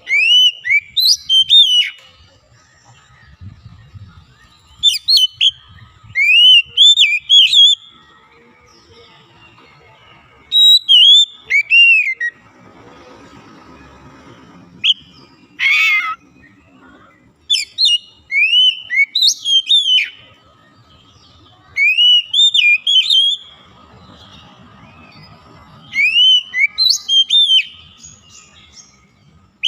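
Oriental magpie-robin (kacer) singing: loud phrases of quick rising and falling whistled notes, one burst every few seconds, with one short harsh rasping note about halfway through.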